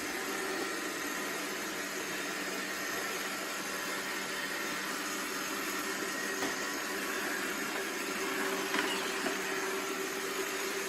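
iRobot Roomba 690 robot vacuum running: a steady whir of its vacuum motor and brushes with a faint constant hum.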